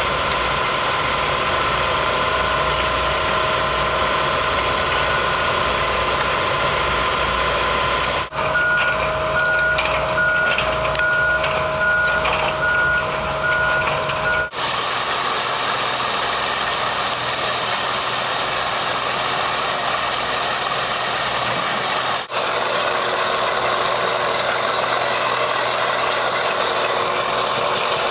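Heavy machinery engines running, heard in several clips cut together. In the middle clip a vehicle's reversing alarm beeps steadily for about six seconds.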